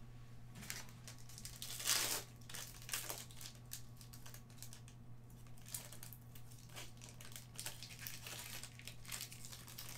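Foil trading-card pack wrapper being torn open and crumpled by hand, crinkling irregularly throughout with a louder rip about two seconds in. A steady low hum runs underneath.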